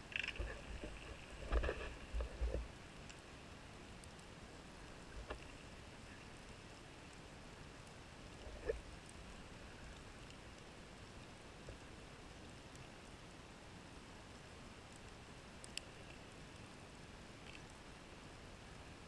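Underwater ambience picked up through a camera housing on a reef: a steady hiss, with a few short low rumbling bursts in the first three seconds and scattered sharp clicks later.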